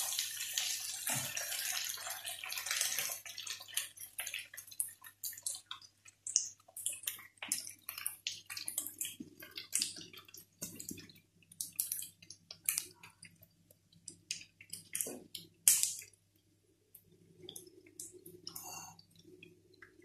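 Shrimp and pasta sizzling in a frying pan while a spatula stirs them, a dense hiss that stops about three seconds in. After it comes a long run of separate clicks, taps and knocks from dishes and utensils being handled.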